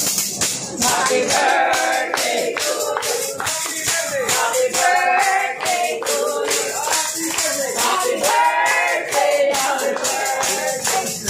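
A group of restaurant staff singing a birthday song together, with a tambourine shaken along to the beat.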